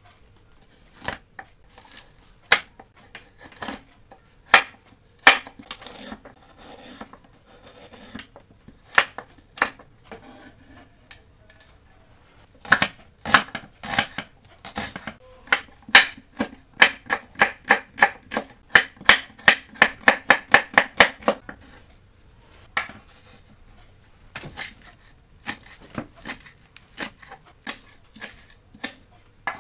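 Kitchen knife slicing carrot, onion and spring onion on a wooden cutting board, each cut a sharp knock of the blade against the board. Single cuts about a second apart at first, then a quick run of chops at about three a second in the middle, then slower cuts again.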